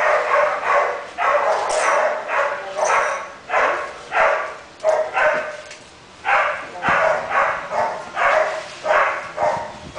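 Two dogs barking in a steady, repeated run of loud, drawn-out barks, about two a second.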